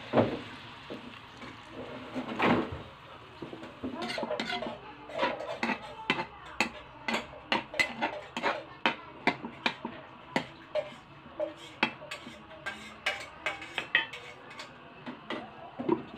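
A metal spatula stirs pork intestines in a metal wok, knocking and scraping against the pan about twice a second. Water splashes into the wok at the start. Near the end a metal lid is set on the wok.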